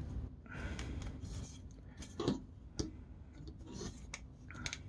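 Plastic joints of a toy vehicle's legs clicking as they are bent and repositioned by hand: a few scattered sharp clicks over faint handling noise.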